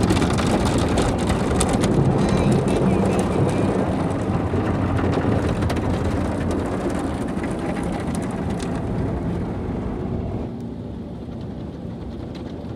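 Automatic car wash working over the car, heard from inside the cabin: a steady rush of water spraying and drumming on the windows and body. It gets noticeably quieter about ten seconds in.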